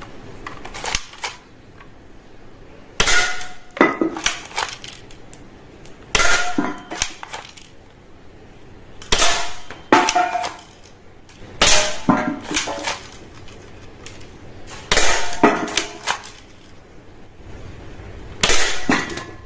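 A series of toy gun shots with sharp metallic clangs and clattering, each hit ringing briefly. They come mostly in pairs, about every three seconds.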